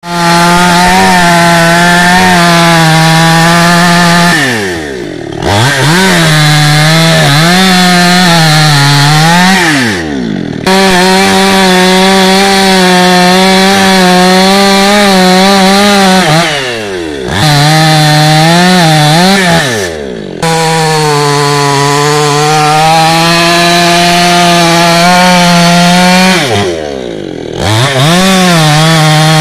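Two-stroke petrol chainsaw running near full throttle as it cuts into the buttress root of a large kapok tree, its pitch sagging and wavering under the load of the cut. Several times the throttle eases, so the engine drops in pitch and then revs back up.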